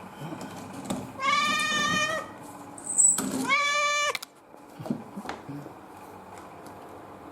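Domestic cat meowing twice: two drawn-out, even-pitched meows about a second long each, the second sliding up at its start. A sharp click sounds just before the second meow.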